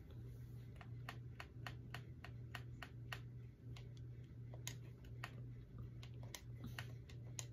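Faint, irregular clicking, a few clicks a second, over a low steady hum.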